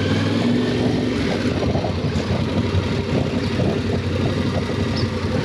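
Yamaha Ténéré 700's parallel-twin engine running with a steady hum.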